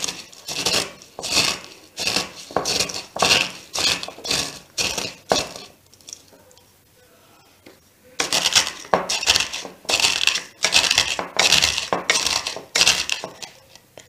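Dry cornflakes being crushed by hand in a bowl: a run of crisp crunches, a bit under two a second, pausing for about two seconds midway and then going on.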